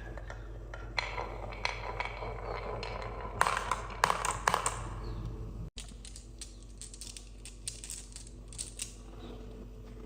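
Marbles rolling and clattering down a wooden HABA marble-run track: a dense run of irregular clicks and clacks, with a short break just past halfway.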